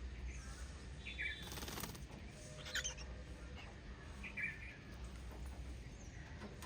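Small pet parrots giving a few short, scattered chirps a second or two apart, with a brief rustle about one and a half seconds in, over a low steady hum.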